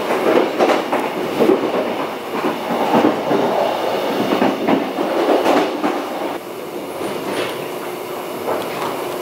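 Running noise heard from inside a moving passenger train car: wheels rumbling on the rails with irregular clacks, easing to a quieter, steadier run after about six seconds.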